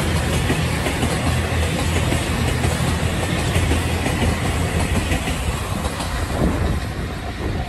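Diesel train rolling slowly past: a steady low engine drone under wheel and rail noise.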